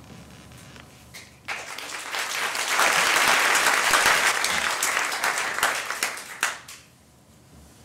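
Audience applauding. The clapping starts about a second and a half in, swells, and dies away near the end.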